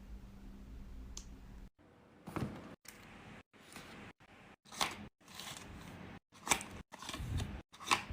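Short bursts of crinkling and rustling from blind bag packaging being handled and opened, broken by abrupt cuts into silence; a low steady hum runs under the first second and a half.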